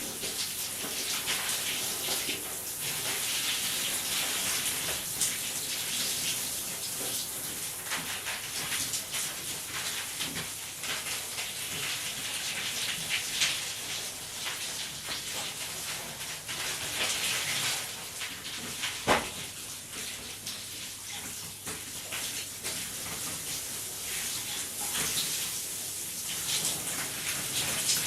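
Shower water spraying and splashing as a person showers, the hiss rising and falling as the spray is broken up. One sharp knock about two thirds of the way through.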